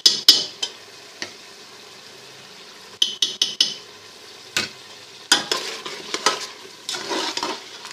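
A spoon stirring and scraping through a korma masala frying in ghee in a pot, over a steady sizzle. Sharp clicks and scrapes come in clusters near the start, about three seconds in, and again over the last few seconds.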